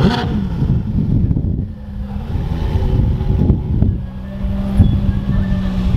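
Ferrari F8's twin-turbo V8 running at low revs with a steady low note as the car pulls away slowly.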